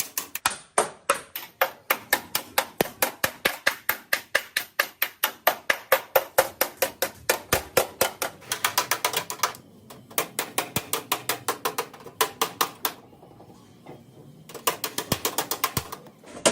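Hammer beating sheet metal in fast, even blows, about four to five a second, stopping and starting in three runs with a pause of a couple of seconds before the last.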